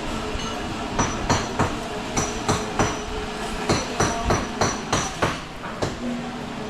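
A run of sharp knocks, about fifteen irregular strikes in quick succession like hammering, some leaving a faint metallic ring, over a steady background hiss.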